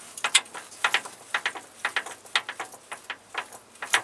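Irregular metallic clicking, about three or four sharp clicks a second, from the opened gearbox of a T-40AM tractor as its gears and shafts are turned by hand.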